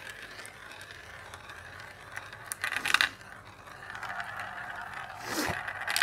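Glass marbles rolling and clicking through the plastic funnels of a marble run. There are a few sharp clicks about two to three seconds in. From about four seconds on, a steady whirring follows as a marble spins around a funnel.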